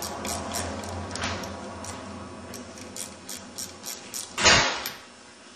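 Ratchet wrench clicking at about four clicks a second as a bolt is undone from the gearshift locking mechanism on an ATV engine's crankcase. The clicking fades out, and a louder clunk follows about four and a half seconds in.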